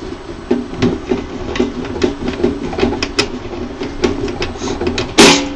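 Irregular clicks, knocks and rattles of a screwdriver and metal parts being handled inside a resin printer's metal base, with one louder clatter about five seconds in.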